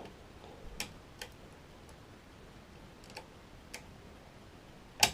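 Lever pick and tension tool working inside an ERA Fortress five-lever mortice deadlock: about five small, separate metallic clicks as levers are lifted and drop, the sharpest and loudest near the end.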